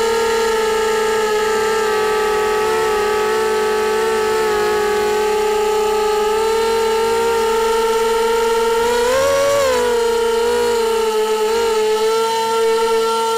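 QAV250 racing quadcopter's brushless motors and propellers whining steadily, heard close up from the onboard camera, the pitch wavering slightly and rising then falling back briefly about nine seconds in.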